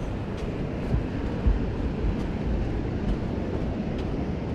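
Wind rushing over the microphone, a steady noisy rush with gusty low bumps, the strongest about a second and a half in.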